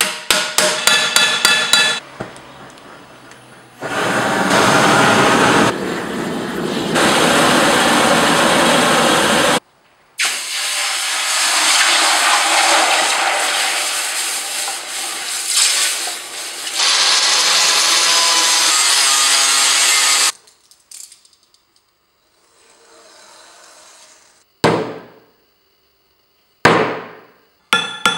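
A quick run of hammer blows ringing on a steel helmet shell, then a long stretch of loud hissing noise, with hot steel quenched in a tub of water. Two single strikes come near the end, and quick hammering starts again at the close.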